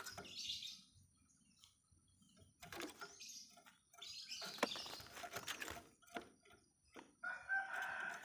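Bird calls: short harsh chattering bursts mixed with clicks, then a steadier pitched call near the end.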